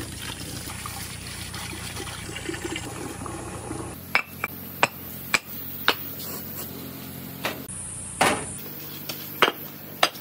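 Marbles rolling and clattering: a dense, even rush of many marbles for about four seconds, then, after a change, separate sharp clicks of single marbles striking the track at irregular intervals, with one longer rattle about eight seconds in.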